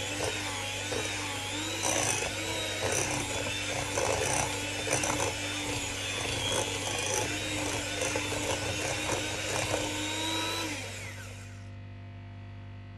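Sabichi electric hand mixer running steadily with a motor whine, its beaters knocking against the glass bowl as they work crumbly butter-cookie dough. It switches off about eleven seconds in and the whine winds down.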